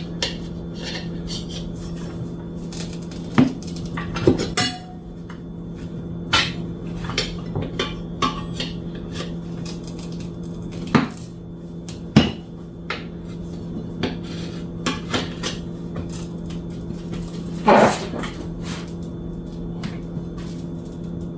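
Metal tire irons clinking and scraping against a dirt bike wheel rim as the rear tire's bead is levered on a little at a time: irregular sharp clicks and clanks, some briefly ringing, over a steady low hum.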